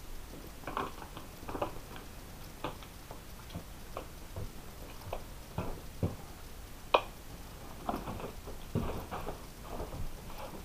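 Irregular soft knocks, taps and rustles of people moving about and handling things in a small room, with one sharper click about seven seconds in.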